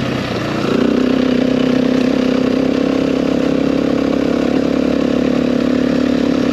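KTM dirt bike engine running under way at steady revs; the note drops briefly near the start, then picks back up about a second in and holds.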